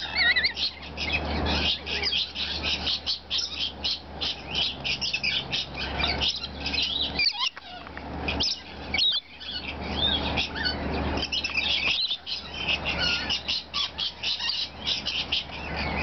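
A flock of rainbow lorikeets chattering and screeching: dense, rapid, high-pitched calls overlapping without a break as the birds crowd around a hand-held nectar cup.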